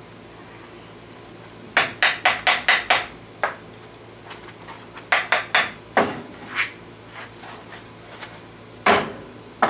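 Hammer knocking on a metal sand-casting flask and its clamps: a quick run of about six sharp metal knocks about two seconds in, another cluster around five to six seconds, and a single loud knock near the end, as the flask is rapped loose to open the mold after an aluminum pour.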